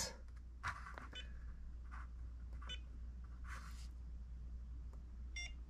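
Faint clicks of an ISDT K4 balance charger's menu buttons being pressed, with short electronic beeps from the charger, one near the end.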